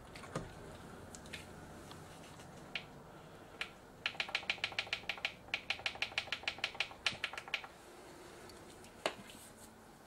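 A few single sharp clicks, then a quick even run of about twenty light clicks, roughly six a second, each with a brief ringing tone, lasting about three and a half seconds, and one last click near the end.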